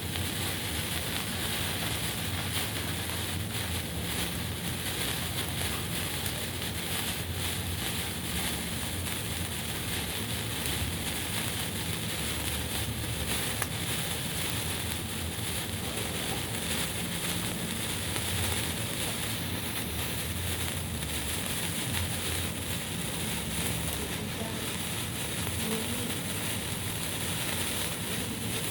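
Signal flare burning with a steady hiss.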